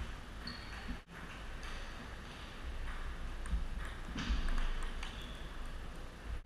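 Table tennis ball clicking off the paddles and the table at irregular intervals during a rally.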